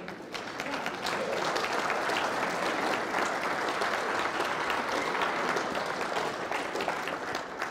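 Audience applauding. The clapping builds about a second in, holds steady, then tapers off near the end.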